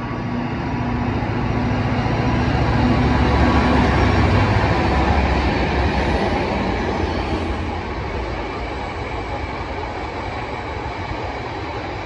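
Diesel freight locomotive passing, its engine drone loudest about four seconds in. It is followed by a long rake of open box wagons rolling by with a steady rumble of wheels on rail.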